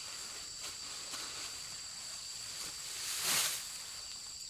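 Insects trilling steadily in two high, even tones, with a short rustling swish about three seconds in.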